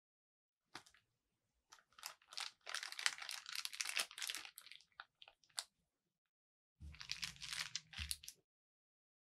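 Clear plastic zip bag crinkling as cookie dough is scraped into it with a spatula and pressed flat by gloved hands. There is a long run of crackling from about two to six seconds in, then a second shorter burst with a low rub under it near the end.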